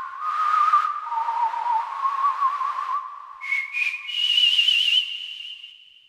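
Waldorf Kyra virtual-analog synthesizer playing a single-voice lead patch: one pure tone at a time with vibrato, gliding between notes in a slow melody. A little over three seconds in the line jumps higher, then it fades out near the end.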